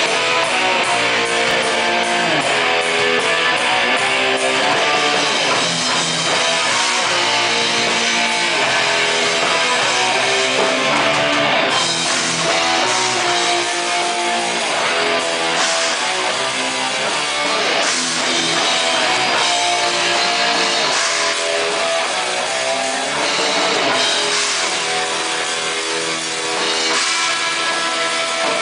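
Live heavy metal band playing loud: distorted electric guitars over a pounding drum kit.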